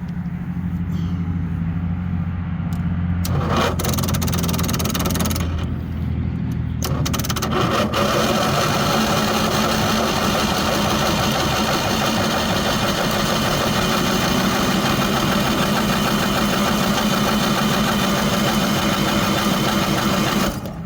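Onan RV generator being started: low cranking at first, catching about three seconds in, faltering briefly, then running steadily from about eight seconds on before cutting off near the end.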